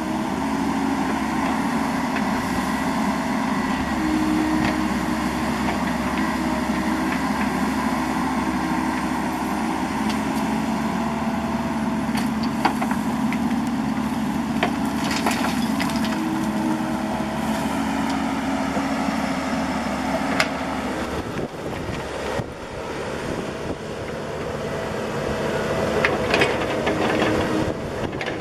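Bobcat E50 mini excavator's diesel engine running under load, its pitch shifting as the hydraulics work, with occasional sharp knocks and scrapes from the bucket and dirt. The engine drops off briefly a little past the two-thirds mark, then picks up again.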